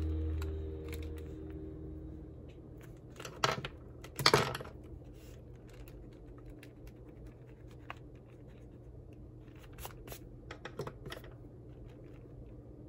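Drawing tools handled at a desk: sharp clacks about three and a half and four and a half seconds in as the pencil is put down and a pen-style eraser taken up, then faint rubbing of the eraser and pencil on sketchbook paper, with a few light taps near the end. A low hum fades away in the first two seconds.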